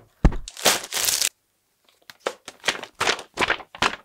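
Handling noise from opening a cardboard box of building bricks: a knock from the lid, crinkling of the plastic parts bags, then the paper pages of the instruction booklet flipped quickly, several short rustles a second.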